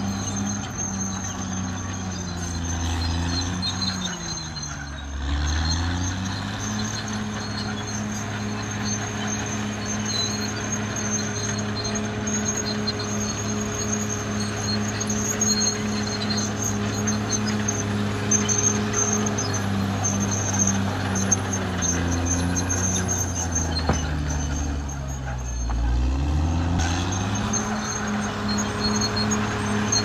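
Caterpillar D6R XL bulldozer at work, its diesel engine running steadily, over a faint high whine. The engine speed drops and comes back up twice, about four seconds in and again about twenty-five seconds in.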